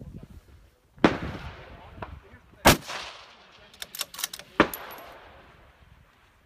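Three rifle shots from a 6.5x47 Lapua precision bolt-action rifle, a little under two seconds apart, each trailing off in an echo. A quick run of small metallic clicks between the second and third shots is the bolt being cycled.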